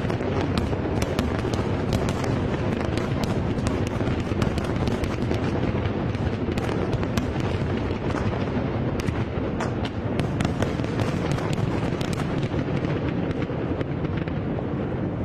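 Fireworks display going off: a continuous rumble of bursts with many sharp crackles layered over it, the crackles thinning out near the end.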